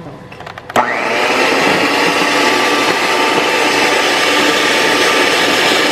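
Electric hand mixer switched on about a second in, its motor running steadily as the beaters whip egg whites with powdered erythritol.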